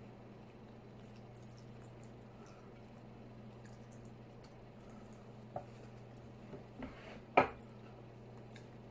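Close-miked eating sounds: soft squishy chewing and mouth clicks over a steady low hum. A few small knocks of a fork on a plate come later, then one louder sharp knock about seven seconds in as a plastic sour-cream container is handled.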